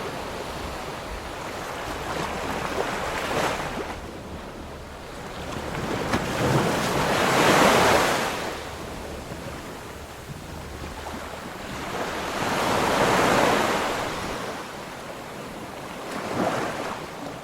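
Ocean waves breaking, a rushing surf that swells and fades with each wave, loudest about 8 and 13 seconds in.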